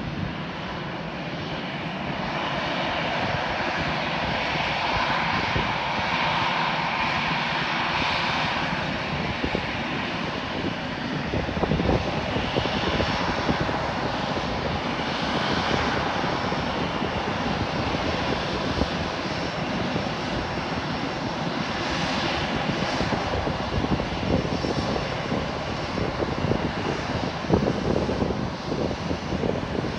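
Airbus A320's twin jet engines running at taxi power as the airliner taxis in after landing: a steady rumble and whine that swells and eases a few times.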